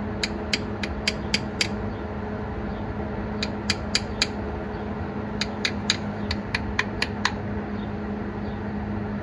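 Pliers tapping lightly on the 4WD encoder motor housing in three bursts of sharp ticks, a few a second, over a steady low hum. The tapping is a test for an internal fault in the encoder motor: the resistance reading jumps with each knock.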